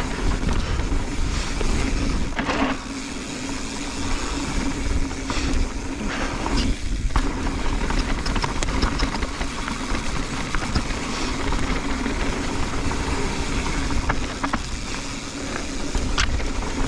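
Mountain bike descending a dirt flow trail at speed: wind rushing and buffeting on the camera microphone over the rolling noise of knobby tyres on dirt, with short rattles and knocks from the bike over bumps now and then.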